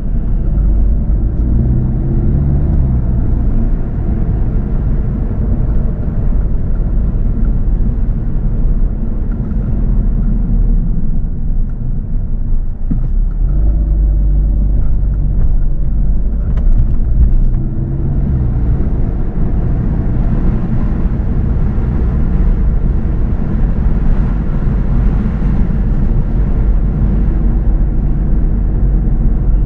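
A car driving: steady engine and road rumble, with the engine note rising briefly twice, near the start and about halfway through.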